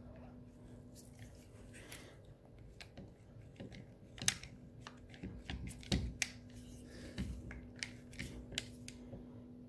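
Plastic diesel fuel filter housing from a 1.6 TDCi engine being handled and worked apart in gloved hands: scattered sharp clicks, creaks and small knocks, most of them in the second half. A faint steady hum sits underneath.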